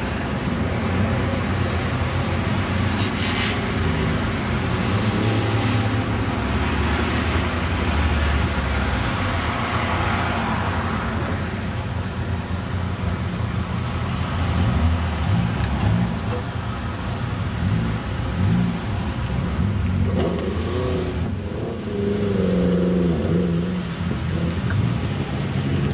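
Car engines running at a track's start area in a steady low rumble, with one engine revved up and down a few times about twenty seconds in.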